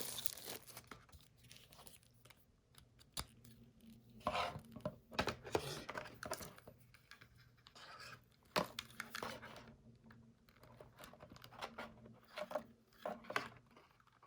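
Plastic packaging being rustled, crinkled and torn open by hand, in irregular bursts, with a few sharp clicks and knocks of small parts being handled.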